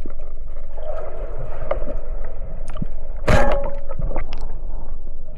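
Underwater sound on a spearfishing dive: steady low water rumble with scattered clicks and gurgling, and one loud sharp crack with brief ringing a little over three seconds in.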